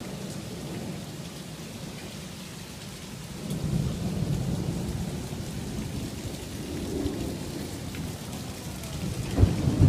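Hail and heavy rain pelting down, an even hiss of falling ice and water. A low rumble swells about three and a half seconds in, and a couple of low thumps come near the end.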